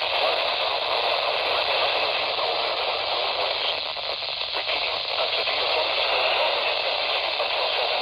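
Steady static from a radio receiver on a weak signal: an even, mid-pitched hiss with no clear voice coming through.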